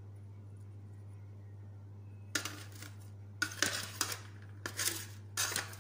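Four short scraping, rustling noises over a steady low hum, starting about two seconds in.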